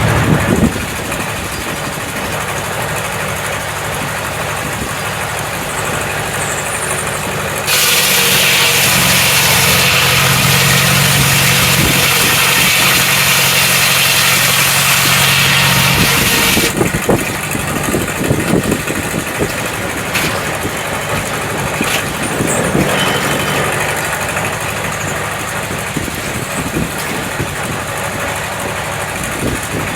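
Sawmill engine running steadily; from about 8 to 17 seconds in, a loud, even hissing as the saw cuts through a log, then the engine runs on lighter with scattered knocks and clatter.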